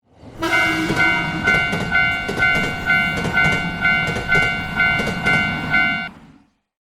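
Japanese level-crossing warning bell ringing about twice a second over the rumble of a passing train; both stop abruptly about six seconds in.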